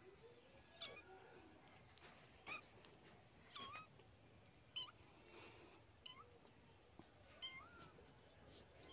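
Fluffy grey kitten mewing faintly: about six short, high mews, roughly one every second or so.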